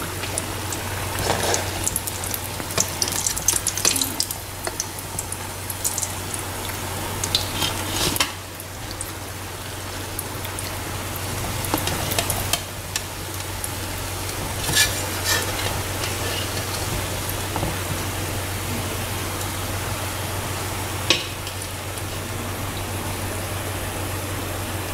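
Bread patties sizzling as they deep-fry in hot oil in a metal pan, with a slotted spoon clicking and scraping against the pan as they are turned and lifted out. A steady low hum runs underneath.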